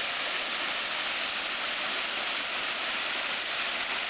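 Small waterfall, about 8 or 9 feet tall, running after rain: water pouring and splashing in a steady, even rush.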